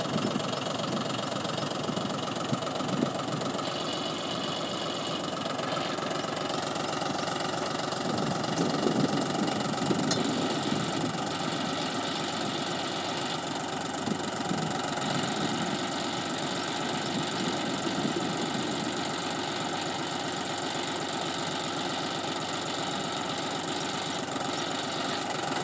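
John Deere 5310 tractor's three-cylinder diesel engine running steadily, growing a little louder around eight to ten seconds in.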